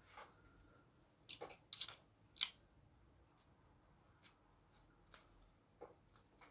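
Faint short strokes of a comb drawn through a short synthetic-fibre wig: a few quick strokes close together, then scattered fainter ticks.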